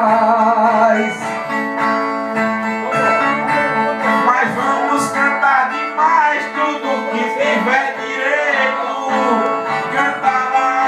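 A man's voice holds the last sung syllable of a repente verse with a wavering pitch for about a second, then two steel-strung violas with metal resonator bodies play the plucked instrumental interlude between verses.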